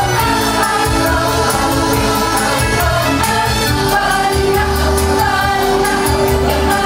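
Choir singing a song together over instrumental backing, with long held notes and a steady bass line underneath.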